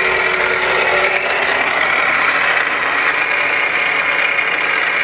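Dodge Journey engine running with a loud, steady nasty racket, with a scratchy high squeal, from the belt-driven accessories on the right side of the engine bay. It is the sound of a bad alternator bearing.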